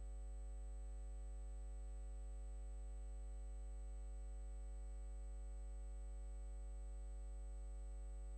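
Steady electrical mains hum with many even overtones and a thin high whine, unchanging throughout; no boat or harbour sound comes through.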